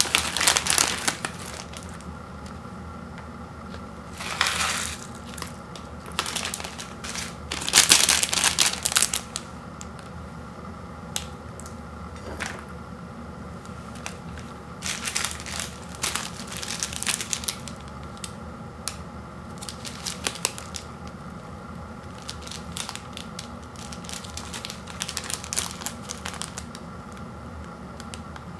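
Plastic instant-noodle packaging crinkling and rustling as it is handled and torn open, in irregular bursts. The loudest bursts come about a second in and around eight seconds in.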